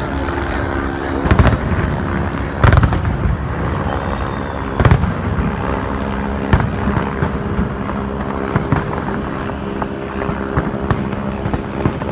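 Large fireworks display going off: sharp bangs at irregular intervals over a continuous background rumble and crackle, the loudest bang about five seconds in, with smaller pops toward the end.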